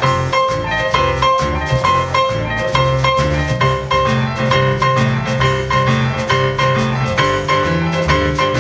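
Instrumental break of a live blues trio: a digital stage piano plays quick, evenly repeated notes over upright double bass and drums.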